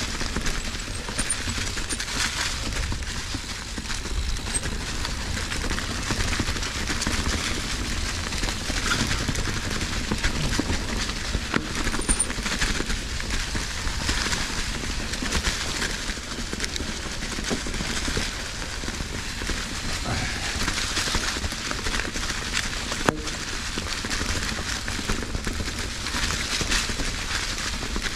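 Fezzari Cascade Peak mountain bike ridden over rough, rocky trail ground: a continuous crackling clatter of tyres and bike rattling over rocks, with one sharp knock about 23 seconds in.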